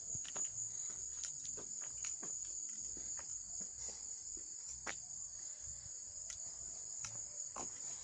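Insect chorus, a steady high-pitched shrill that runs on unbroken, with faint scattered footsteps on grass and pavement.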